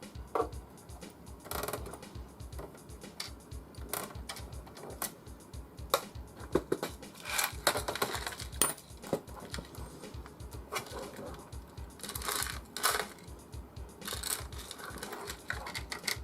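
Scattered clicks and knocks of plastic computer-case parts and screws being handled, over background music with a steady low beat.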